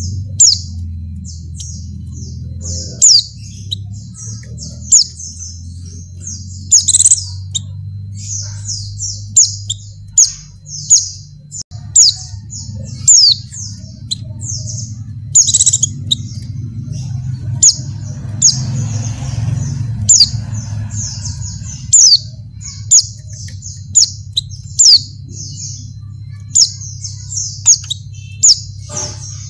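Female white-eye (pleci) calling in breeding condition to draw males: a fast run of thin, high chirps broken every second or two by sharper, louder down-slurred notes.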